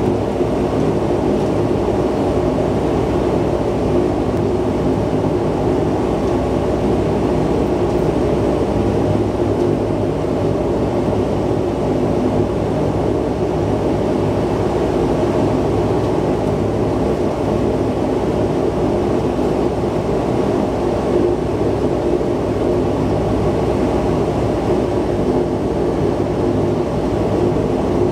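de Havilland Canada Dash 8-100's turboprop engines and propellers running steadily at taxi power, heard from inside the cabin as a loud, even drone with a steady low hum.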